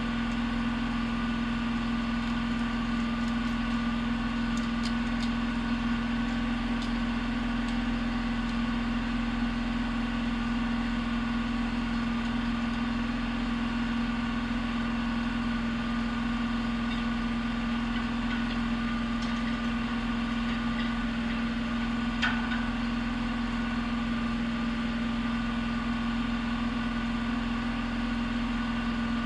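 Steady machine hum at a constant pitch that does not change, with a faint click or two.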